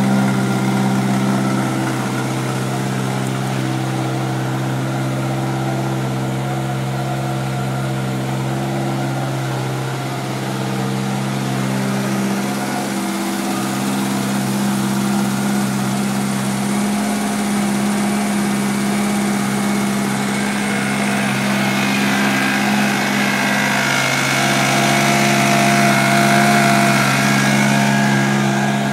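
1969 MG Midget's 1275 cc A-series four-cylinder engine idling steadily, running again after a year laid up, on a new fuel pump, fresh fuel, cleaned carbs and new plugs. It gets slightly louder over the last several seconds.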